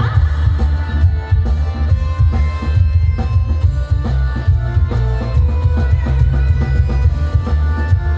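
Loud instrumental music over a sound system, with a heavy, booming bass and a steady drum beat under a melodic line.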